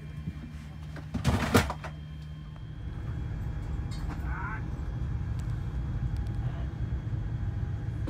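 Aircraft cabin ambience: a steady low hum, with a loud rustle-and-knock of handling about a second and a half in, then a louder, even low rumble from about three seconds in.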